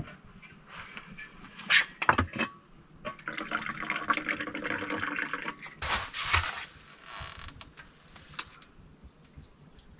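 Hot tea poured from a thermos into a cup for about three seconds, a steady pouring sound. A few sharp clicks come before it, and a knock follows as the pour ends.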